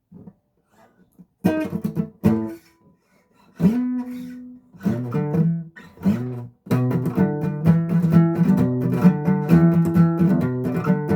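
Guitar being played: a few separate plucked notes and strums with pauses between them, then from about seven seconds in a steady run of quickly changing notes.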